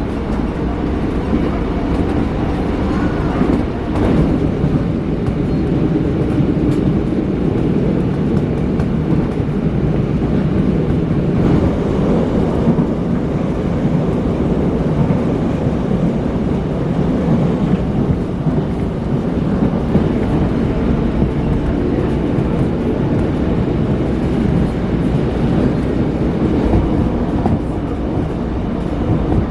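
Seoul Metro Line 1 commuter electric train running, a steady low rumble with faint clicks from the track.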